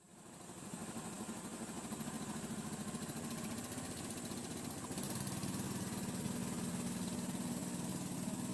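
A small engine running steadily, with an even throb; its pitch shifts slightly about five seconds in.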